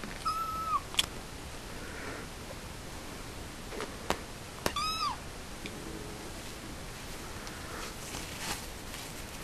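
Seven-week-old tuxedo kitten meowing twice, two short meows about four seconds apart, each sliding down in pitch at the end. Two sharp clicks come between the meows.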